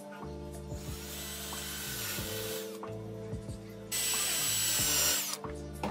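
Cordless drill boring into wood in two runs, the second, from about four seconds in, louder with a thin whine, cutting off about a second and a half before the end. Background music plays throughout.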